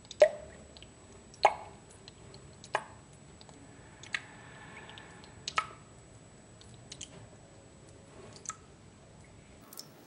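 Water drops falling into a sink onto its metal drain and the wet basin, each a short sharp plop. They land about one every one and a half seconds, the first couple loudest and the later ones fainter.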